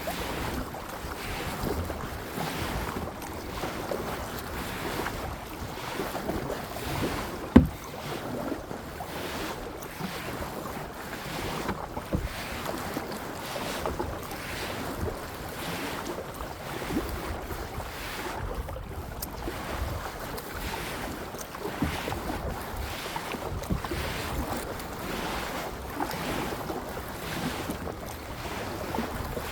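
Kayak paddling: water splashing with each paddle stroke at about one stroke a second, with wind buffeting the microphone. A single sharp knock about seven and a half seconds in.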